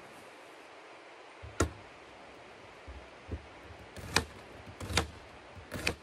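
Knife chopping an onion on a chopping board: five sharp knocks, the first about a second and a half in and the rest coming closer together near the end.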